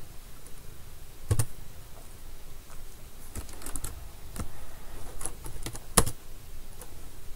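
Scattered single clicks of a computer keyboard and mouse, with a louder click about six seconds in.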